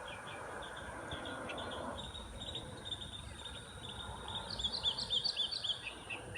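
Birds chirping: a steady series of quick, repeated high notes, with a louder run of rapid chirps about two-thirds of the way through.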